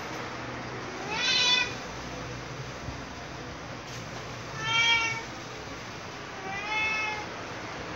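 A cat meowing three times, each meow short, about half a second, over a steady background hiss.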